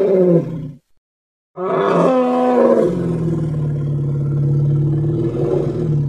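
Stegosaurus roar sound effect: one roar ends just under a second in. After a short silence a second call starts about a second and a half in, falls in pitch, and settles into a long, low, steady growl.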